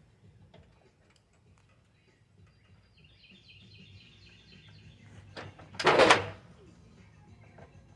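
A bird chirping a quick run of repeated short notes, then a loud burst of noise lasting about half a second, around six seconds in.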